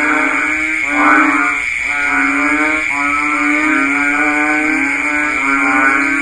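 Banded bullfrogs calling, one low, droning, cow-like call after another, each about a second long with only brief breaks between them. A steady high-pitched drone runs underneath.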